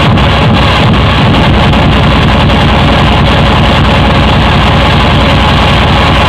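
Loud hard electronic dance music from a DJ set, with heavy bass and a steady fast beat of about three beats a second.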